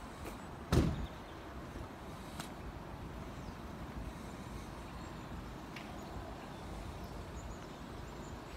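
Steady outdoor rumble of road traffic and wind at a level crossing with its barriers down, with no train passing. A single loud thump comes about a second in.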